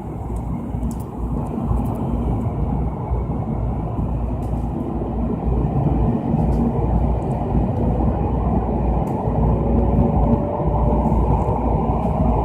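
Steady rumble of a Shinkansen train running at reduced speed, heard inside the passenger car. It is moving slowly after an emergency stop for an abnormal noise, with a faint whine rising in pitch in the last few seconds.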